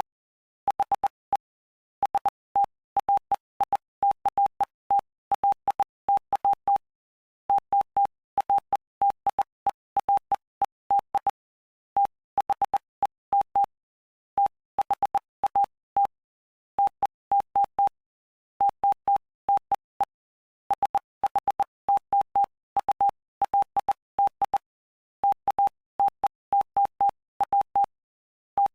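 Morse code sent as a single steady beep, keyed on and off in short and long elements with brief gaps between letters and longer pauses between words. It is spelling out Bible text from the Gospel of Mark, chapter 5.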